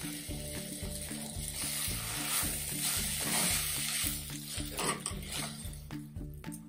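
Wooden spoon stirring fried brinjal, onions and spices in a clay pot: a steady scraping, rustling hiss, loudest in the middle.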